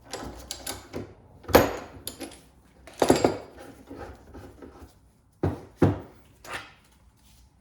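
Metal tools and U-joint parts being handled on a workbench: a run of light clicks, then a sharp knock about a second and a half in, a clatter about three seconds in, and two knocks in quick succession near the end.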